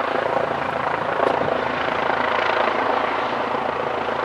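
Airbus Helicopters EC135 twin-engine helicopter flying overhead: a steady rush of rotor and turbine noise.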